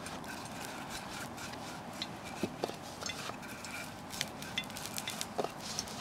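Wooden rolling pin rolling out a round of bread dough on a floured wooden board: soft rubbing with scattered light wooden knocks and clicks over a steady background hiss.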